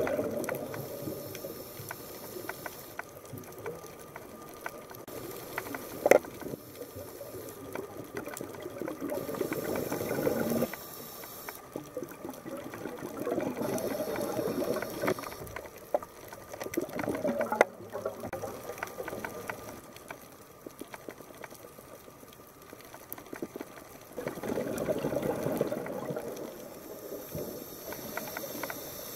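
Underwater sound picked up through a camera housing: a diver's exhaled bubbles gurgling in long bursts every several seconds, with a quieter wash of water between them. A few sharp clicks or knocks stand out, the loudest about six seconds in and again near 17 seconds.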